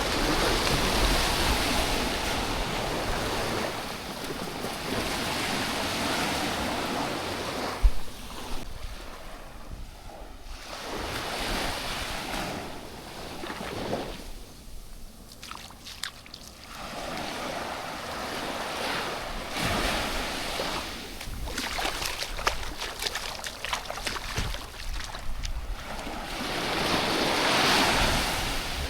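Sea surf washing up the beach in repeated swells, each building and fading over a few seconds. A single sharp thump comes about eight seconds in.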